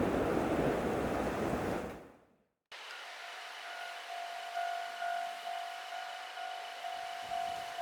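A train passing close by with a loud rushing rumble, fading out and cut off about two seconds in. After a short silence, a Japanese level crossing's electronic warning bell starts ringing: a repeating high ding that pulses on and off.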